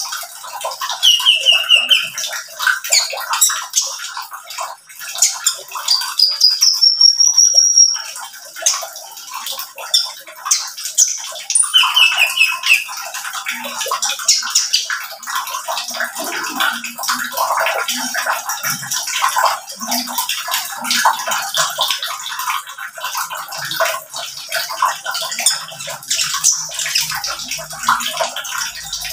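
Male van Hasselt's sunbird (kolibri ninja) singing in its cage: a rapid, busy run of high, thin chirps, short trills and brief whistled glides that goes on almost without a break.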